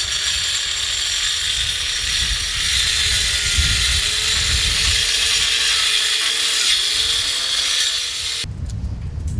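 Handheld power cutting tool running under load as it cuts through sewer pipe: a steady, loud, hissy whine whose pitch sags and recovers around seven seconds in, stopping suddenly near the end.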